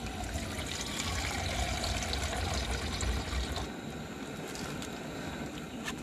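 Water pouring into the pot of a lit canister gas camping stove, stopping a little over halfway through; a quieter steady hiss carries on after it.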